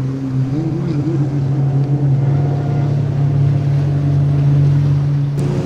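An engine droning at a steady pitch over a constant background rush, with a second wavering tone above it in the first two seconds; the pitch steps up just before the end.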